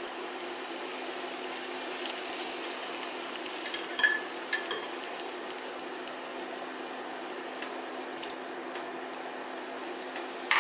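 Pork and vegetables in gochujang sauce sizzling gently in a frying pan, with a few clinks of a metal spoon against a glass bowl and the pan around four seconds in as minced garlic is added.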